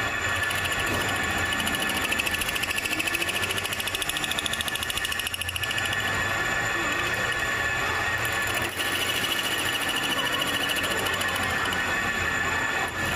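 Metal lathe running while a boring tool cuts inside a spinning metal ring: a steady machining noise with a high, squealing whine held throughout, dipping briefly a few times.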